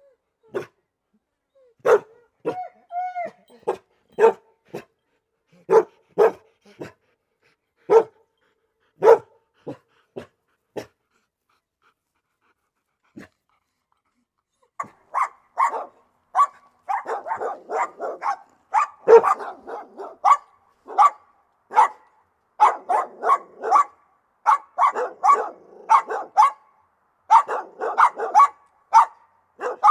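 Dog barking: single sharp barks about a second apart, with a short pitched whine about three seconds in. After a pause of a few seconds around the middle, the barking becomes rapid and continuous.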